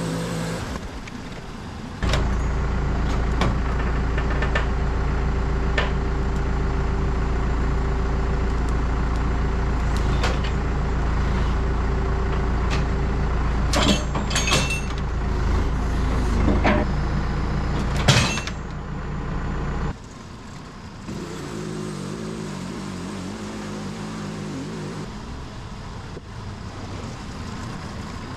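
Petrol engine of a portable bandsaw sawmill running steadily at high throttle while sawing a log, with several sharp knocks and clanks about two-thirds of the way through. About twenty seconds in it drops to a quieter, lower engine sound.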